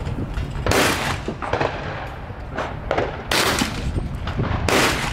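Several gunshots, three of them loud: about a second in, a little after three seconds, and near the end, each followed by a short ringing echo, with a few fainter shots between.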